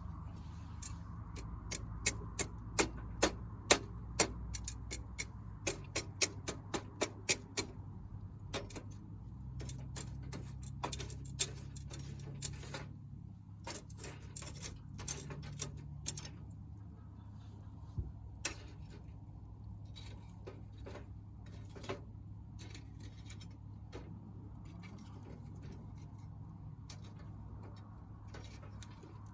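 Small wood fire crackling: irregular sharp pops from the burning firewood, coming thick and fast for the first half and then only now and then, over a low steady rumble.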